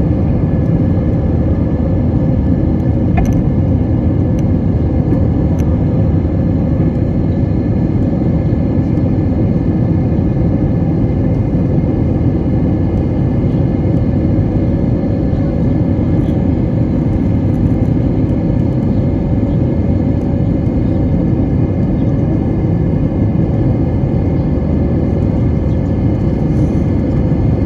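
Airbus A321 jet engines running at high power during takeoff: a loud, steady rumble with a constant hum over it.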